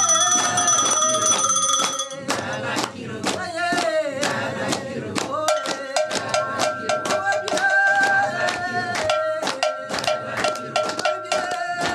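Singing in long held notes over quick, sharp percussion strikes.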